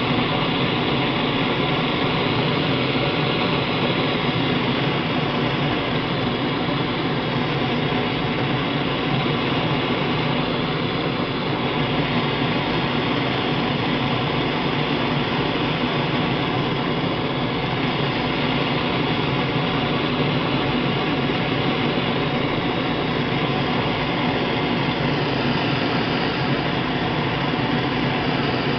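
Propane torch burning steadily, a constant rushing hiss of gas flame with no breaks.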